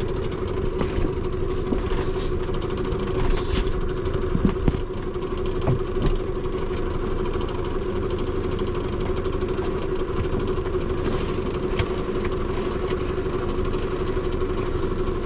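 Small sailboat's engine running steadily while motoring, a constant even hum, with a few light knocks about four to six seconds in.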